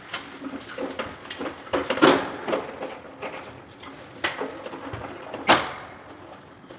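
Irregular clicks, taps and knocks of hands working on the parts of an opened split-type air conditioner indoor unit, with two louder knocks, about two seconds in and again about five and a half seconds in.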